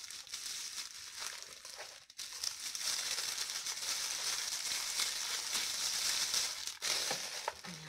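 Plastic wrapping, a clear bag and bubble wrap, crinkling and rustling as it is pulled off a camera lens by hand. It is fainter for the first couple of seconds, then a fuller continuous crackle.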